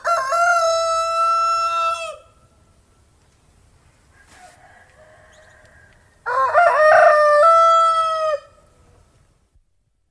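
Two rooster crows, each about two seconds long and ending on a long held note. One comes at the start and a second, slightly louder one about six seconds in, with a faint call between them.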